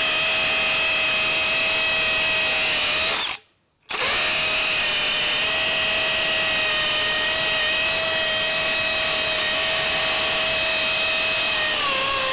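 DeWalt DCD999 FlexVolt Advantage brushless hammer drill running on high in hammer mode, driving a masonry bit into hard concrete: a steady high whine over rapid hammering. It cuts out briefly a little over three seconds in, then runs on and slows as it stops near the end.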